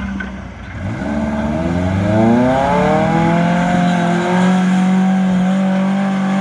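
Rock-crawler buggy's engine revving under load as it climbs a rock ledge: the revs rise over about two seconds, then hold high and steady.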